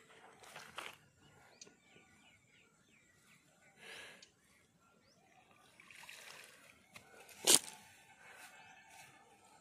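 Wet nylon cast net being hauled out of the water and bundled by hand: short rustling, dripping splashes of water, with one sharp knock about seven and a half seconds in that is the loudest sound.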